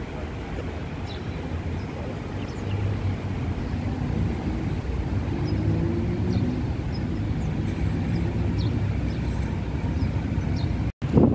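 Outdoor city ambience: a steady low rumble of distant traffic and wind on the microphone, with a vehicle engine humming a little louder through the middle. Near the end the sound drops out abruptly and a brief loud knock follows.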